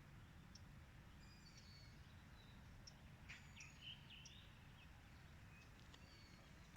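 Faint evening birdsong: scattered high chirps and short whistles, with a cluster of quick up-and-down calls in the middle, over a steady low background rumble.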